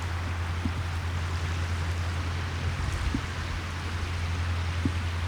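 Wind noise on a phone microphone behind a foam wind muffler: a steady hiss over a constant low hum.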